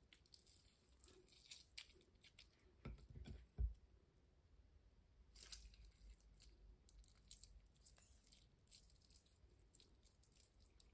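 Near silence with faint squelching, clicks and rustles from a lime half being squeezed by hand over minced pork in a pan, and a soft thump about three and a half seconds in.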